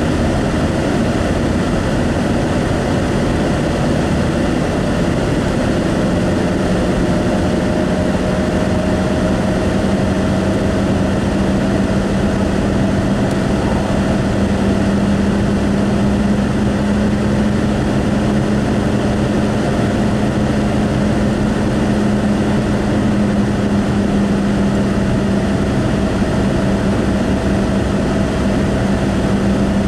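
Steady road noise inside a moving car at highway speed: tyre and engine drone with a steady low hum that comes in firmly about six seconds in.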